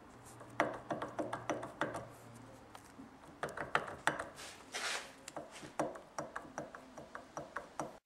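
Worn front wheel hub bearing assembly from a 2006 Hummer H3 turned by hand, giving irregular clicking and rough grinding: the sign of a bad bearing.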